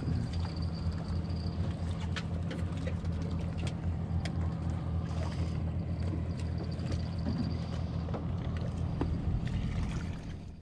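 Boat engine idling steadily, a low even hum, with a few light clicks and knocks on board.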